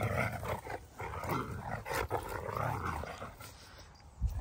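Dalmatians growling in rough play while wrestling, in irregular bursts that die down near the end, then a short low thump. It is still play, with an edge of one dog being a little dominant.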